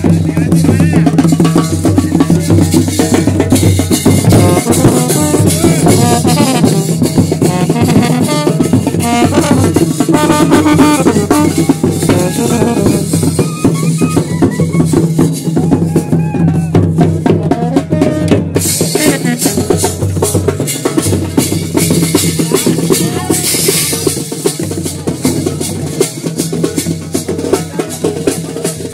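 Wedding band music: bass drum and snare beating a steady dance rhythm under a wind-instrument melody.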